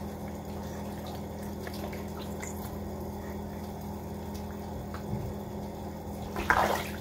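Quiet water lapping and dripping in a plastic baby-bath tub with a baby sitting in it, over a steady low hum, with a short louder burst near the end.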